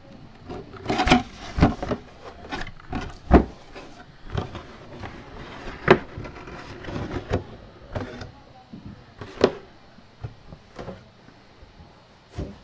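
Handling sounds from a cardboard mini-helmet box being opened and a hard plastic display cube being taken out and set down: irregular rustling with several sharp clicks and knocks.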